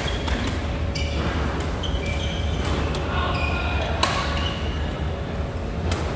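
Badminton hall: several sharp racket strikes on shuttlecocks, the sharpest about four seconds in, mixed with short high squeaks of court shoes on the floor, over a steady low hum.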